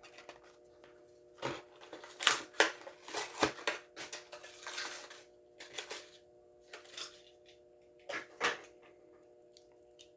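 Plastic blister packaging and card backing of a die-cast toy car being handled and pulled open: irregular crinkles, cracks and rustles, busiest between about two and five seconds in.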